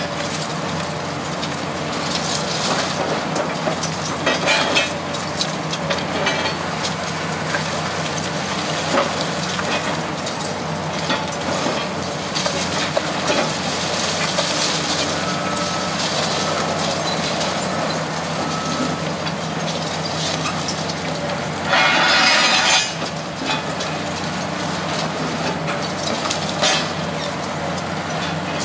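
Excavator engine running steadily while its hydraulic demolition crusher bites through reinforced concrete floor slabs, with constant cracking and crunching of concrete and falling rubble. A louder harsh burst lasting about a second comes about three quarters of the way through.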